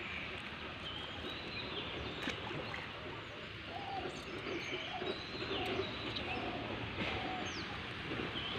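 Several birds chirping and calling, with short quick chirps at high pitch and a few lower call notes, over a steady outdoor background hiss.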